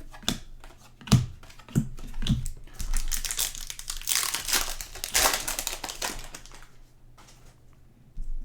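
Trading cards and a foil card-pack wrapper being handled: a few light taps of cards being stacked, then a stretch of crinkling wrapper lasting about three seconds that fades out near the end.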